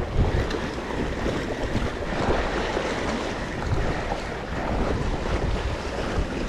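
Wind buffeting the microphone over the steady wash of sea waves against the shore.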